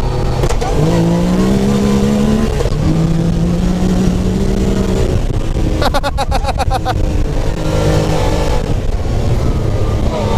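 Supercharged Yamaha YXZ1000R side-by-side's three-cylinder engine at full throttle, heard from inside the cab. Its pitch climbs, drops at a gear change about two and a half seconds in, then climbs again. A rapid stuttering burst comes about six seconds in, after which the engine settles lower.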